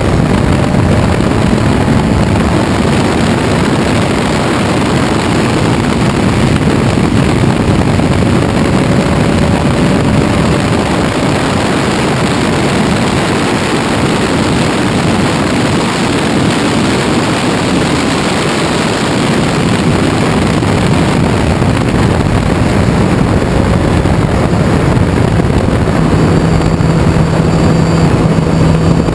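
1968 Ginetta G16 sports racing car at speed on track, its engine running hard and heard from the open cockpit with heavy wind rush over it, steady and loud.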